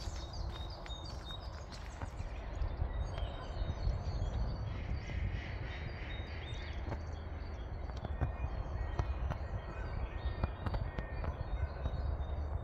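Footsteps on a park path over a steady low rumble, with small birds chirping near the start and a harsher bird call about five seconds in.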